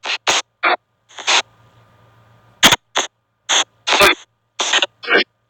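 Android spirit-box app playing through a phone speaker: about ten short, choppy bursts of hissy noise and clipped sound fragments at an irregular pace, with silent gaps between them.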